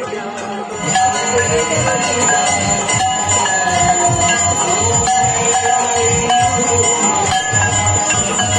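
Hindu aarti hymn being sung, with bells ringing along. The sound gets louder about a second in.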